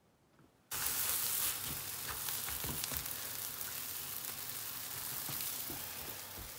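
Somali pancake sizzling in a frying pan just after being flipped. The sizzle starts suddenly about a second in, is loudest at first, then settles to a steady sizzle with faint crackles.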